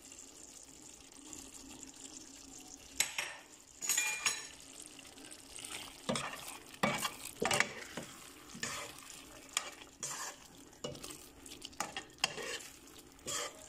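A ladle stirring a pan of thick chicken-and-potato sauce, knocking and scraping against the pan in irregular strokes from about three seconds in, over a faint steady sizzle.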